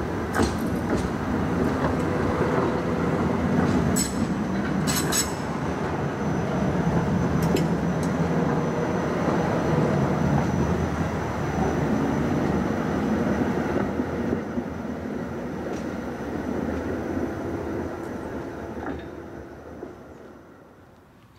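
A tram passes close by, its wheels running and clacking sharply a few times over the points and crossing in the first five seconds, then fades away as it moves off.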